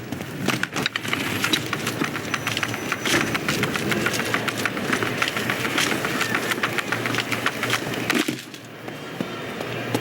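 A rapid, dense run of clattering knocks and cracks over a noisy background, which stops abruptly about eight seconds in, leaving a quieter, steadier rumble.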